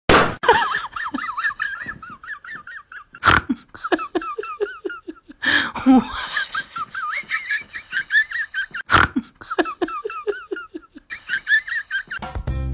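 Hearty laughter in repeated rapid bursts, high-pitched, broken by a few sharp knocks. Background music comes in near the end.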